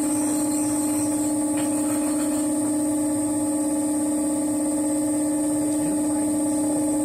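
Electric potter's wheel motor humming steadily as it turns a stoneware jug, one even, unchanging tone.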